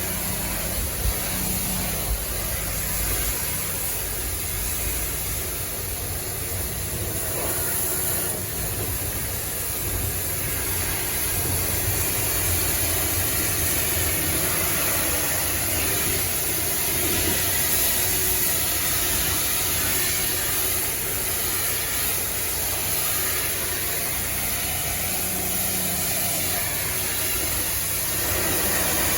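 DeWalt 3.5 GPM pressure washer running steadily, with the hiss of its water spray during a fresh-water rinse.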